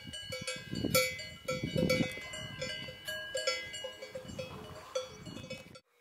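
Metal bells worn by grazing livestock, clanking in an irregular rhythm, each strike ringing briefly.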